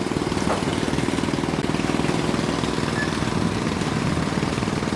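A small boat's motor running steadily, with a fast, even beat.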